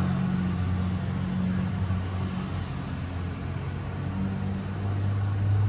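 Hydrogen fueling dispenser running during a fill: a steady low hum over a hiss. The hum fades about a second and a half in and comes back strongly near the end.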